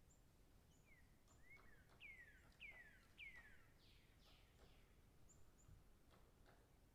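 Faint bird calls: a series of short whistled notes sliding downward in pitch, one after another, about one to four seconds in, with brief high chirps scattered throughout.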